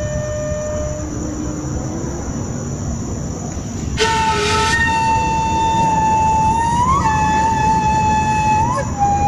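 Background music from a solo flute holding long notes. A fainter note fades out about a second in; a new note starts with a breathy attack about four seconds in and is held, bending up slightly twice. A steady low background noise runs underneath.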